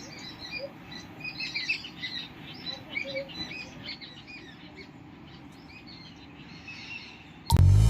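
Many small birds chirping, with a steady low background rush underneath. Loud music cuts in abruptly near the end.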